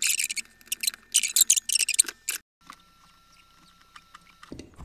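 Scratchy scraping and rustling as the metal legs of a small tactile switch are pushed into the holes of a circuit board, lasting about two seconds. After that it drops to a faint steady high tone, with a low knock near the end.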